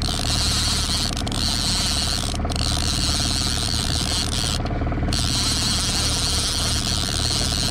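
Magda Pro line-counter trolling reel being cranked steadily, its gears clicking in a fast, even rhythm as line is wound back in against a hooked king salmon. A steady low hum runs underneath.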